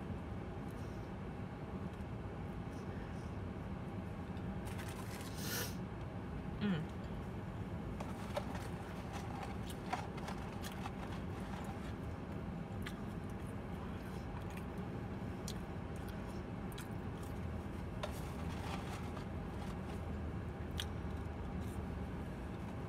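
Close-up eating sounds: chewing a fast-food burger, with scattered soft clicks, crunches and a paper-wrapper rustle, over a steady low hum in the car.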